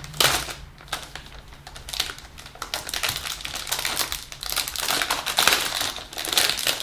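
Plastic wrapping crinkling and rustling as a mechanical keyboard is pulled out of its box, with a run of sharp clicks and knocks from handling. It is busiest near the start and again in the second half.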